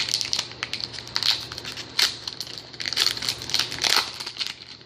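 Crinkling and crackling of a trading card pack's foil wrapper being handled and pulled open, in irregular quick crackles.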